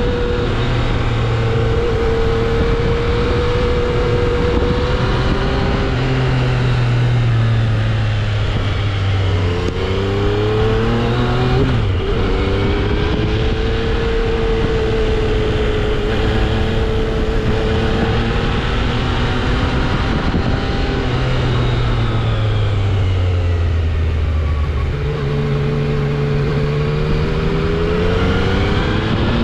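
Yamaha XSR900's inline-three engine running through its stock exhaust while riding. The engine note holds steady, climbs under throttle, drops suddenly at a gear change about twelve seconds in, falls away after about twenty seconds and climbs again near the end.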